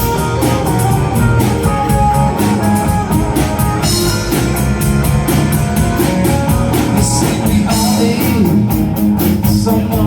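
Live rock band playing an instrumental passage with a steady beat.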